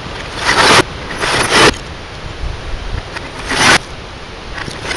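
Sledgehammer blows smashing a CRT television's plastic cabinet and glass, played backwards: three hits, each swelling up and cutting off abruptly.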